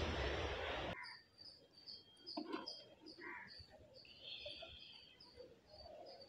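A steady hiss for about a second that cuts off abruptly, then faint outdoor ambience: a high chirp repeating evenly about three times a second, with a few scattered bird chirps.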